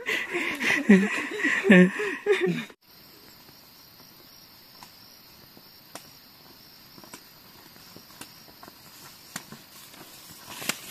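Insects droning in a steady, even, high-pitched buzz, left on their own after voices cut off abruptly about three seconds in, with a few faint clicks.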